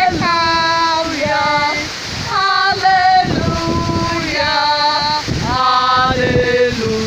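A female voice singing a melody in held notes that slide from one pitch to the next, over a steady rushing noise.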